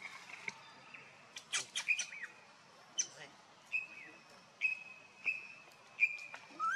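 Newborn macaque calling: four short, thin, high calls in the second half, about one a second, each holding one pitch and dropping at the end, and a rising call at the very end. A few sharp clicks come in the first two seconds.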